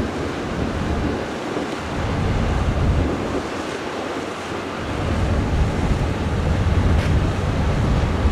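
Wind gusting on the microphone over steady harbour water noise as a high-speed catamaran ferry passes. The low rumble drops away twice, for a second or two each time, before building again.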